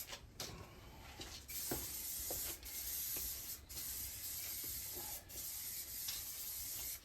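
Aerosol can of satin black spray paint hissing in several passes, each broken off by a brief pause, as coats are layered onto a car's body panels.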